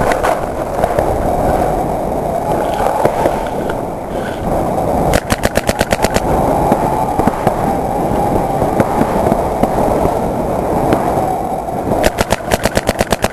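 Paintball marker firing two rapid strings of about ten or more shots a second, the first about five seconds in and the second near the end, over a continuous rumble.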